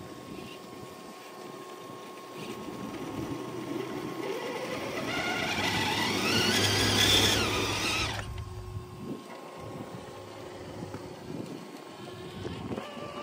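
Electric motor and gear drivetrain of a six-wheel RC rock crawler whining under throttle as it climbs a rock ledge. The whine rises steadily in pitch and gets louder, then cuts off suddenly about eight seconds in as the throttle is released.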